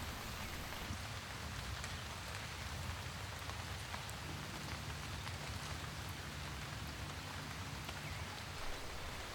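Steady rain falling, with scattered faint drop ticks over a low, even rumble.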